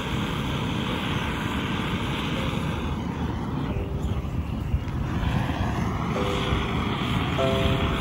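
Steady rushing noise of road traffic passing near the campsite, mixed with a low wind rumble, with one vehicle sweeping past about halfway through.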